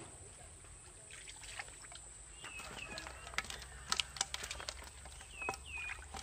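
Water trickling and splashing with scattered sharp clicks, busiest in the middle. A bird gives two quick downward chirps twice, once near the middle and once near the end.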